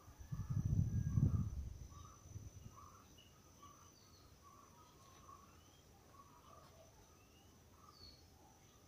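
Birds calling with short chirps and soft notes repeated about twice a second, over a steady high insect whine. A low rumble on the microphone, likely wind or handling, lasts for about the first two seconds.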